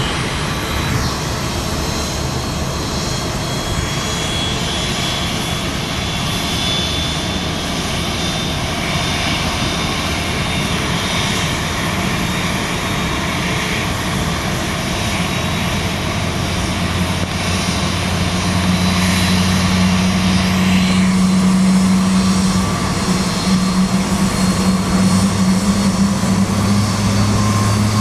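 Jet noise from an Airbus A330-200 freighter under pushback: a steady whine and rumble. About two-thirds of the way through, a low drone grows louder.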